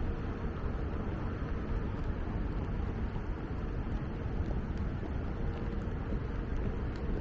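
Steady city street ambience: a low rumble of traffic with a faint steady hum, and no single event standing out.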